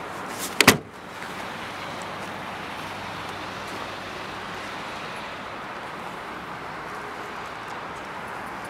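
Trunk lid of a 1999 Volkswagen Passat B5 slammed shut: one loud, sharp bang with a quick double impact less than a second in. A steady outdoor hiss continues under and after it.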